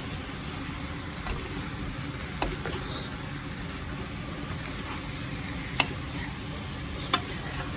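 Curry duck cooking in a pot: a steady low rumble with a faint sizzle, broken by a few short sharp clicks.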